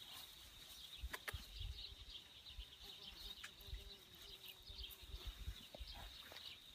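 Quiet outdoor ambience: a thin, steady high-pitched background tone, with scattered soft rustles and low thumps of movement through grass and plants.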